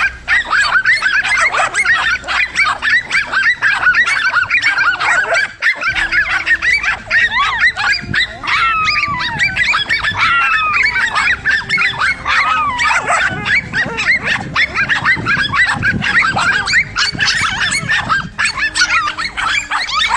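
A pack of dogs barking fast and without pause, the barks of several dogs overlapping, with some drawn-out yelping cries mixed in around the middle.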